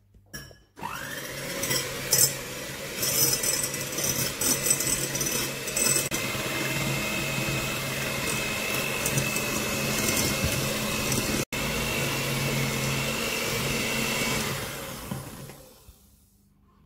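Electric hand mixer with twin wire beaters running in a glass bowl, whisking egg yolks and sugar, starting about a second in. At first the beaters rattle and knock against the glass, then the motor settles into a steady whine, fading out near the end.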